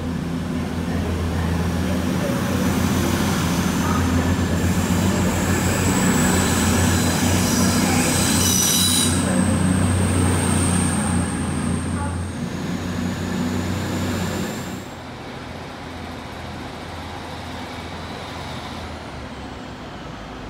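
A train running through the station, with a steady low drone from its running gear and a thin high-pitched squeal in the middle. The drone drops away suddenly about three-quarters of the way through, leaving a quieter rumble.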